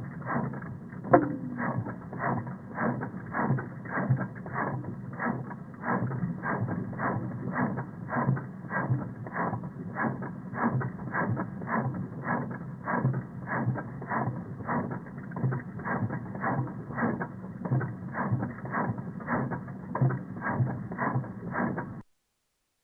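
2002 Honda Civic 1.7L four-cylinder engine running, heard through a knock sensor bolted to the block, so it comes across as a muffled mechanical clatter with a regular knock about two to three times a second. This is the recording in which a misfiring cylinder was identified. The sound cuts off suddenly near the end.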